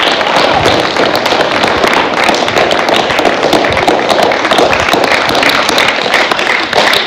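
An audience applauding: many hands clapping together in a steady, dense spread of claps.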